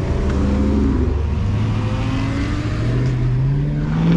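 A car engine accelerating, its pitch climbing steadily over a few seconds.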